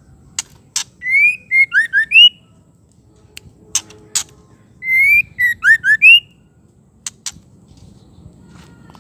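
Female white-rumped shama giving two short whistled phrases of four or five rising and falling notes, about four seconds apart. Pairs of short sharp clicks fall between the phrases.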